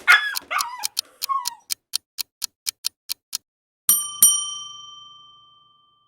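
A dog whimpering and yipping briefly over an even clock-like ticking of about five ticks a second, which stops partway through. Then two bell dings about a third of a second apart ring out and slowly fade.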